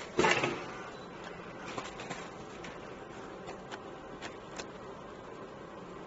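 Ultrasonic wire-harness welding machine splicing copper wires: a short loud burst just after the start, then a steady hiss with a few light clicks.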